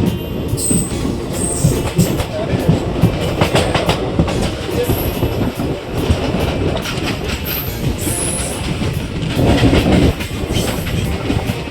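Passenger train running at speed, heard on board: a steady rumble of the coaches with wheels clacking over rail joints, and a few brief high-pitched wheel squeals.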